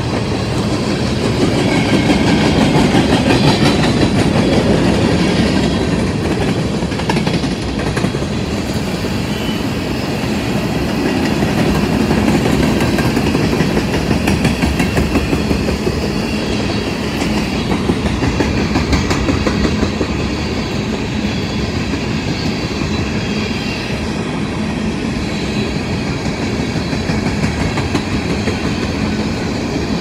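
Empty coal hopper cars of a freight train rolling past close by: a steady rumble of steel wheels on the rail, with a rapid run of clicks as the wheels pass over rail joints.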